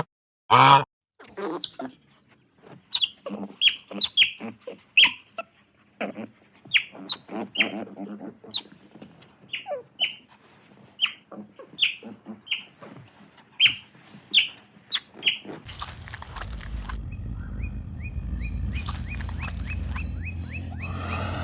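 Birds chirping: many short, high calls, each dropping in pitch, a few per second. About three-quarters of the way through the sound changes to a steady low rumble with a quick run of high notes over it.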